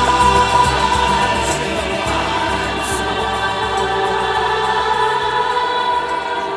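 Acoustic psychedelic pop band music: layered, sustained vocal harmonies held over light percussion, with the bass dropping away about five seconds in.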